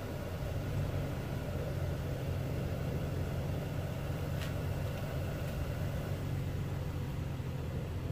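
A steady, low mechanical hum like an idling engine, with a faint click about four and a half seconds in.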